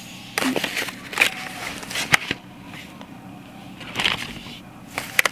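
Rustling and crinkling of wrapping material and plastic-packaged gifts being handled, in several bursts with a few sharp clicks and crackles.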